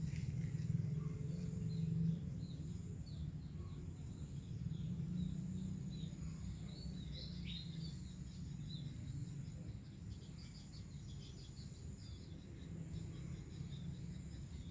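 Outdoor ambience: small birds chirping in short scattered calls over a steady high insect drone, with a low steady rumble underneath.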